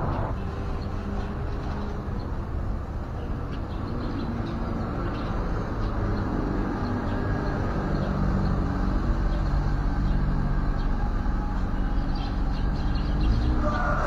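A motor or engine running steadily nearby, a low hum that grows louder through the second half, with a few faint short high chirps over it.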